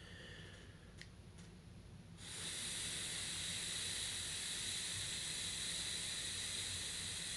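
A steady hiss starts suddenly about two seconds in and holds: air and vapour rushing through a heated electronic dab pen held to the mouth, as the pen is heated and blown through to clear out reclaim. A few faint clicks come before it.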